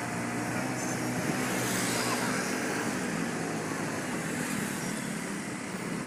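Motorcycle engine running steadily on the move, under a continuous rush of wind on the microphone, with town traffic around.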